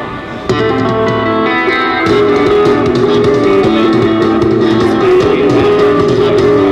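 Guitar-driven rock song played loud through a custom motorcycle audio system's speakers. The music dips for about half a second at the start, then comes back in full.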